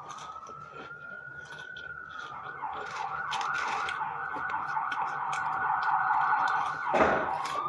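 Car alarm siren sounding: a rising wail, then a fast yelping warble, then a short knock about seven seconds in as it switches back to a rising wail.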